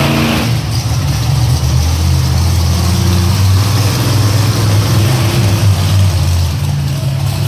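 Monster truck engine running loud and steady, its pitch rising and falling a little as the driver works the throttle.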